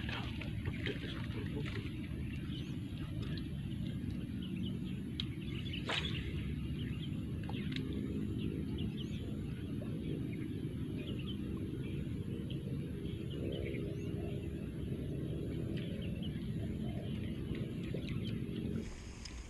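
Steady low rumble of wind on the microphone, with scattered short bird chirps and a single sharp click about six seconds in.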